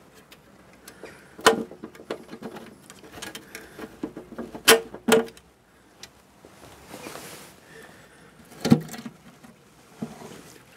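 Knocks and clatter of a BSA Bantam's metal petrol tank being worked loose from the frame by hand: a few sharp knocks, some with a short metallic ring, the loudest about halfway through and again near the end.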